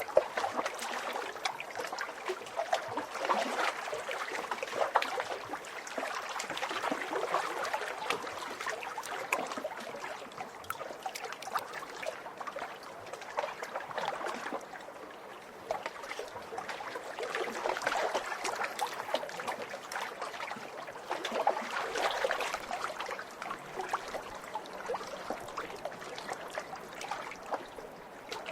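Small lake waves splashing and lapping at the water's edge: a constant wash of little splashes that swells and eases every few seconds.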